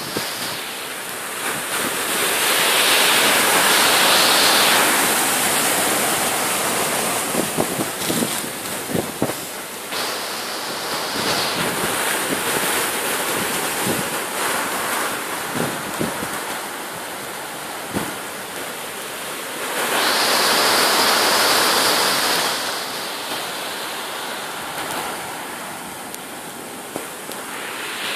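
Rough sea surf churning and breaking against a concrete breakwater and its tetrapod armour blocks: a steady rush of foaming water that swells louder twice, a few seconds in and again past the middle.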